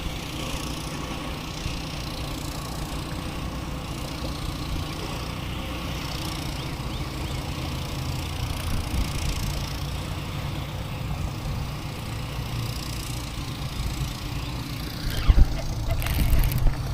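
Steady low rumble of road traffic, with a few loud knocks or thumps near the end.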